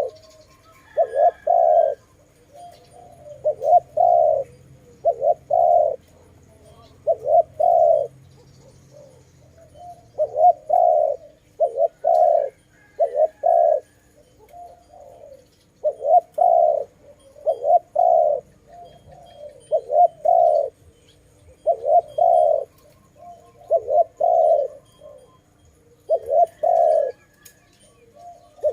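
Spotted dove cooing over and over, a phrase of two or three low coos about every two seconds. Another small bird chirps faintly now and then.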